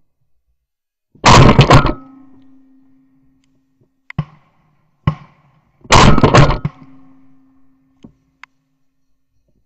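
Two shotgun shots about four and a half seconds apart from a Benelli shotgun, heard very close from a camera mounted on the gun, each followed by a short ringing hum that fades out. A few light clicks come between and after the shots.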